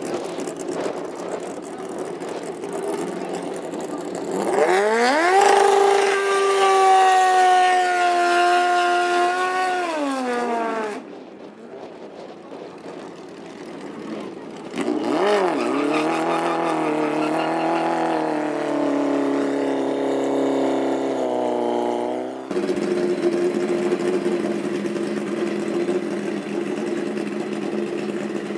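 Drag-racing motorcycle engines revving at the start line during burnouts and staging. A loud, high rev climbs, holds and falls away about five seconds in; after a short lull another bike revs unevenly and cuts off suddenly, followed by a steadier engine note near the end.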